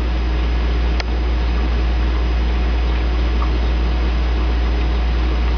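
HHO (oxyhydrogen) torch flame hissing steadily with a deep rumble underneath as it melts granite into glass. A single short click about a second in.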